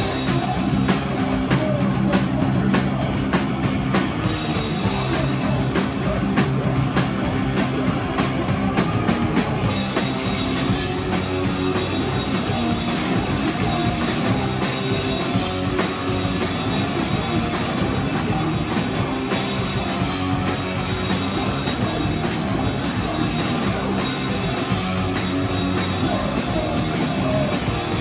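A loud live rock band playing: distorted electric guitars through stacked amps, a full drum kit with the cymbals crashing more steadily from about ten seconds in, and a vocalist shouting into the microphone.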